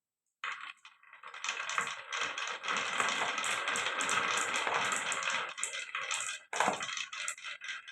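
Marbles rolling and clattering down a marble run: a dense rattle of many small clicks and knocks that starts about half a second in, breaks off briefly near the end, then goes on as scattered clicks.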